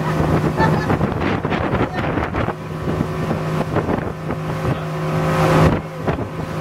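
Motorboat engine running steadily at speed, a constant hum under rushing water and wind buffeting the microphone.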